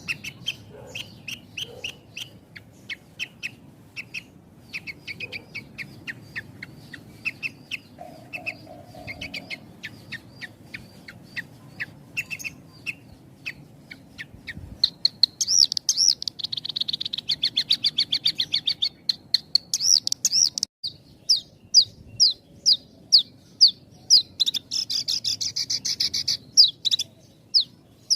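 Javan bush lark (branjangan) singing: a fast, near-continuous string of short high chirps that runs together into a dense trill about halfway through, breaks off briefly, then resumes with quick repeated notes.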